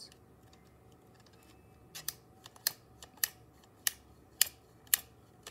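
A string of sharp plastic clicks, about two a second, starting some two seconds in, as the jointed parts of a Hasbro Mosasaurus toy are worked by hand to try to make its mouth open.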